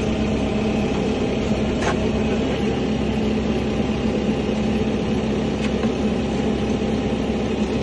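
An engine running steadily at idle, with a couple of faint clicks.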